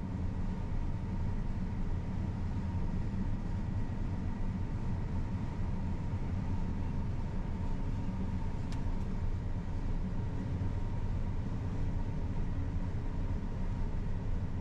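Combine harvester running while cutting soybeans, heard from inside the cab as a steady low drone with a faint steady whine above it. A single sharp click comes about two-thirds of the way through.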